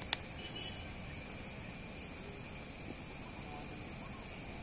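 Insects droning steadily at a high pitch over a low outdoor rumble, with one sharp click just after the start.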